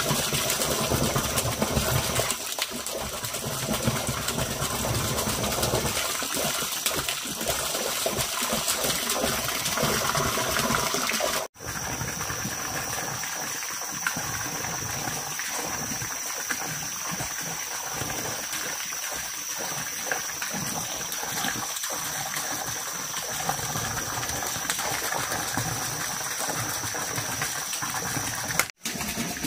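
Steady running or splashing water, broken twice by a brief dropout; a thin steady high tone runs alongside from about a third of the way in.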